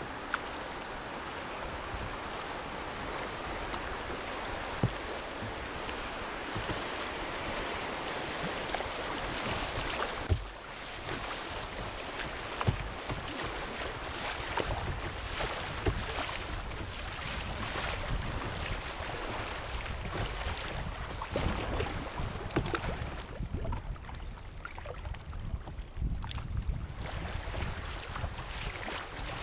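Fast river water rushing and splashing around a kayak's bow as it runs choppy rapids, with a few sharp knocks. The rush thins out somewhat late on.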